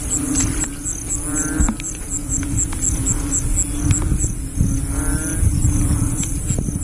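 Frogs calling in a night chorus: a steady low drone with louder croaks every second or two. High above it an insect chirps about four times a second, over a low rumble.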